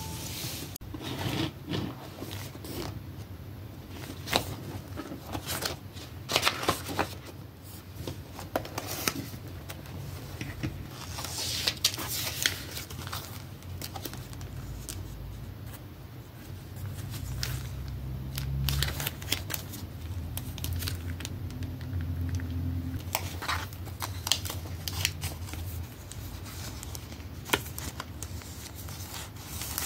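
Plastic packaging and glossy sticker sheets being handled: irregular crinkling and rustling with small clicks and taps, over a low steady hum.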